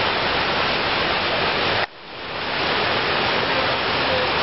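Fast-flowing floodwater rushing and spilling over a concrete edge, a steady noisy rush. It drops out abruptly about two seconds in and swells back over the next second.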